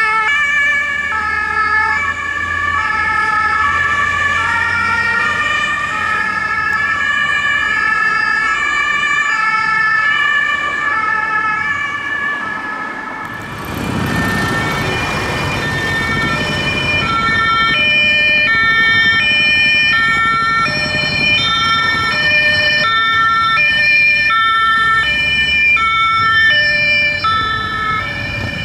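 Several German two-tone emergency-vehicle sirens (Martinshorn) sound at once, each stepping back and forth between two pitches. About halfway through, a vehicle passes close with a rush of engine and road noise. After that a single two-tone horn alternates clearly.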